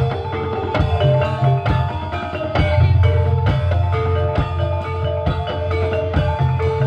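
Live ebeg accompaniment music: metallophone-like mallet percussion playing repeated notes over drums and a heavy pulsing bass, amplified through a sound system.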